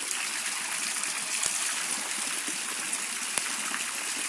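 Steady hiss and splatter of a water jet falling into a swimming pool. Two short clicks are heard, about a second and a half in and near the end, the second one louder.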